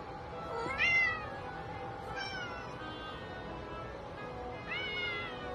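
A cat meowing three times, the first call the loudest, over steady background music.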